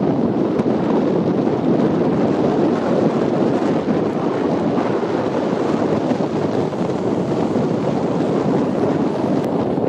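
Car driving at speed: a steady rush of wind on the microphone mixed with road noise.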